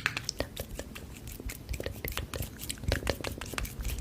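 A close-up run of irregular crisp clicks and crackles.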